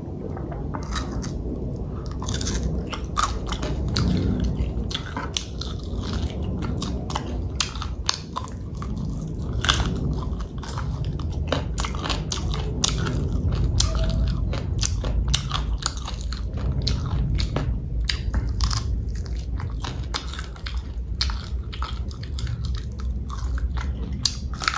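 A person chewing and biting food close to the microphone, with many short, irregular crunchy clicks and wet mouth sounds.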